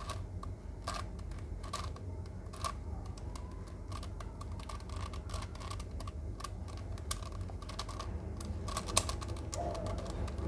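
Plastic pieces of a Sengso Crazy Megaminx clicking and clacking as its faces are turned by hand, in irregular clicks with a quick run of them near the end.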